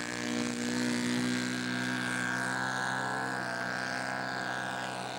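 Engine of a large radio-controlled scale model Albatros biplane running steadily, its propeller turning, with only slight shifts in pitch.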